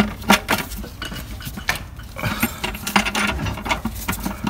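Socket and sliding T-bar wrench clinking and clicking in a run of irregular light metallic ticks as the oil sump drain plug is turned in and tightened.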